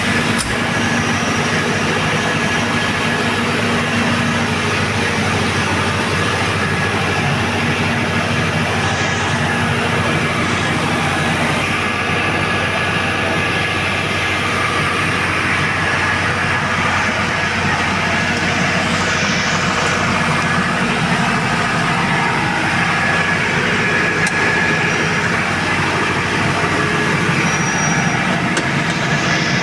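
Tsuzumi TDG 62.5 kVA super-silent diesel generator set running steadily, its four-cylinder turbocharged 4108ZD diesel engine holding an even hum.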